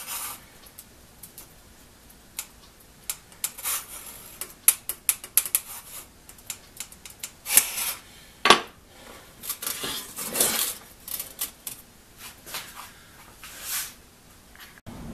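Small steel saw-set gauge clicking and scraping against the teeth of a one-man crosscut saw blade as it is moved from tooth to tooth to check the set. Irregular light metal clicks, with a few louder clinks in the middle and near the end.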